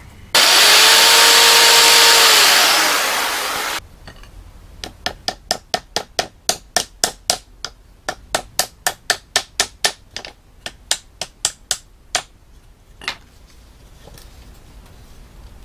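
Hammer tapping small nails into a thin wooden strip of a mosquito-net frame: about twenty quick, even strikes, roughly three a second, then one last tap. Before the hammering, a loud steady hiss lasts about three seconds.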